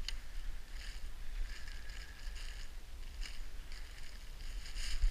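Cross-country skis sliding and scraping over crusty snow in repeated hissing strokes, with a few sharp scrapes, over a steady low rumble.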